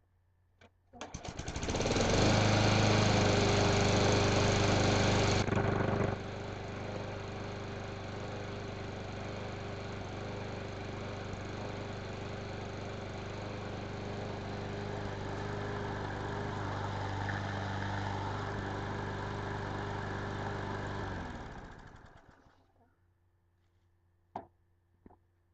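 Craftsman lawn mower's small engine pull-started from cold, firing on the first pull and running steadily after a carburetor cleaning and rebuild cured its no-start. It runs loudest for the first few seconds, turns noticeably quieter about six seconds in, then winds down and stops a little after twenty seconds.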